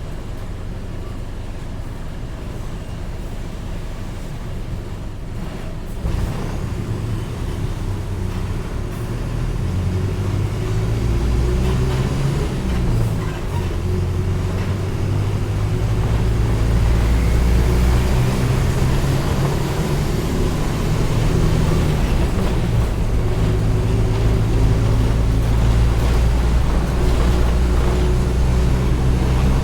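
Mercedes-Benz OF-1722M city bus's diesel engine running under way. It gets louder about six seconds in and builds again as the bus pulls away, then holds a steady loud drone.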